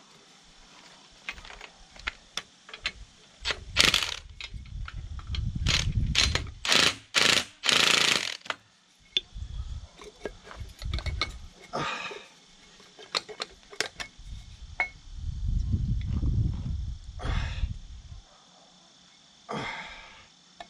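Hand tools working on a coil spring compressor: a ratchet clicking in runs and metal parts clanking, with several louder scraping bursts, as the front coil spring is drawn in tighter.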